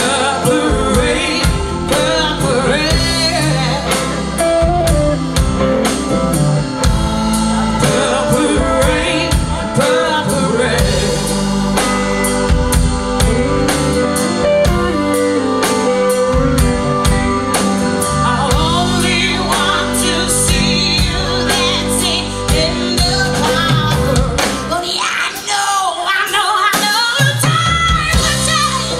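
Live rock-blues band playing: a woman singing over electric guitars, bass, drum kit and keyboards. Near the end the bass and drums drop out for a couple of seconds while the singing and upper instruments go on.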